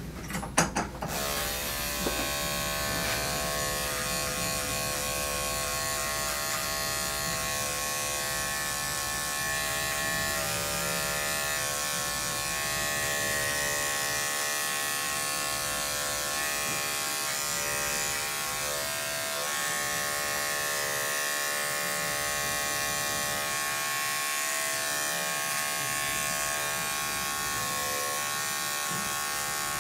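Electric dog grooming clippers running with a steady buzz as they trim the fur on a dog's front leg and paw. The buzz starts about a second in, after a few clicks.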